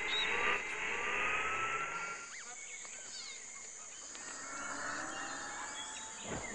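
Small robot's motor whirring in rising glides as its head turns and its camera lens moves, with a sharp sweep near the end. Behind it is outdoor ambience of bird chirps and insect buzz.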